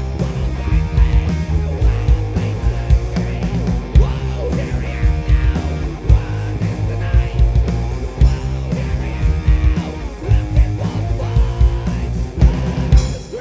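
A hard blues-rock band playing live, with electric guitar, bass and drums.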